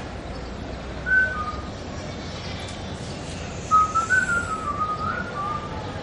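A person whistling: a short falling two-note whistle about a second in, then a longer wavering run of notes for about two seconds.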